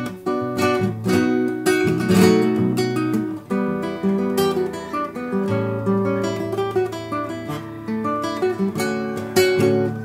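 Acoustic guitar music: strummed chords with picked notes in a quick, steady rhythm.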